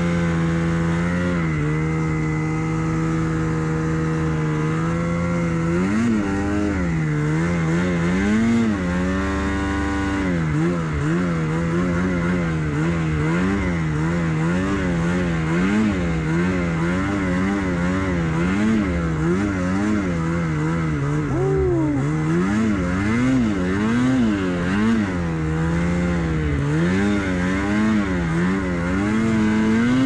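Snowmobile engine running, its pitch holding steady for the first few seconds, then rising and falling about once a second as the throttle is worked.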